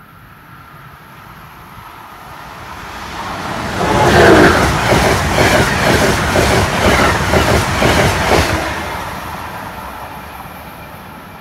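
Amtrak passenger train of Amfleet coaches passing through the station fast. A rush builds as it approaches, then loud wheel and air noise with a rapid, even clatter for about four seconds as the cars go by, fading away after.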